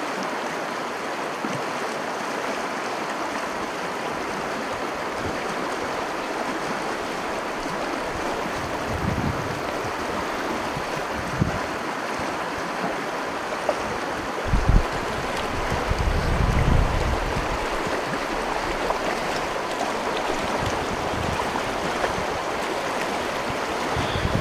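Steady rushing of a fast, shallow mountain stream running over rocky riffles, with a few brief low thumps partway through.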